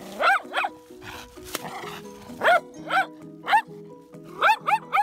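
A dog barking at the water birds, angry and repeated: about eight short, sharp barks in small bunches, two near the start, three in the middle and three in quick succession near the end. Background music plays steadily underneath.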